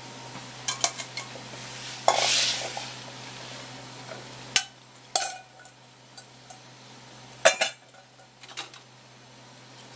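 Metal cooking pots and a lid clinking and knocking on a gas stove. There are several sharp metal knocks, the loudest just past the middle, and a short hiss about two seconds in.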